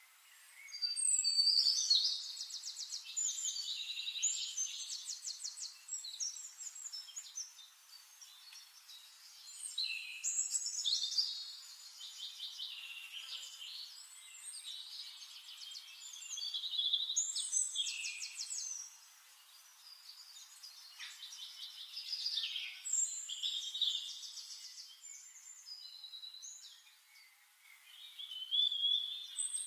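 A songbird singing: long, varied high-pitched phrases with fast trills, repeated about five times with short pauses between.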